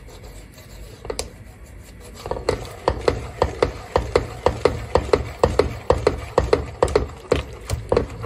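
Wire whisk beating a hot, thickening cream mixture in a pot, its wires clicking against the sides and bottom. A few scattered strokes come first, then from about two seconds in a steady rhythm of about four strikes a second.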